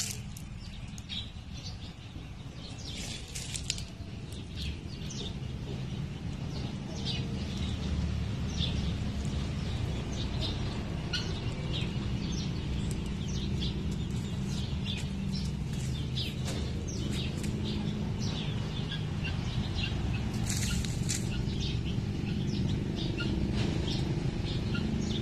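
Small birds chirping and tweeting, many short calls scattered throughout, over a steady low rumble.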